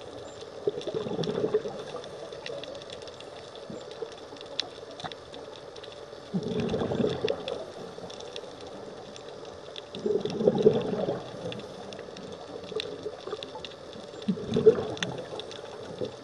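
Scuba diver's exhaled bubbles from the regulator, heard underwater: four bubbling bursts about four seconds apart, one per breath. Faint sharp clicks run between them.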